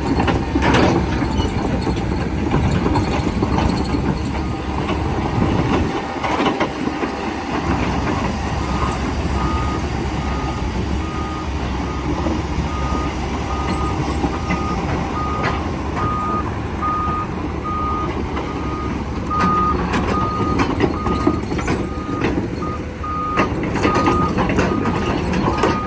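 Doosan DX140LCR-3 excavator's diesel engine running steadily, with its travel alarm beeping at an even pace from about a third of the way in. Occasional sharp metallic clanks.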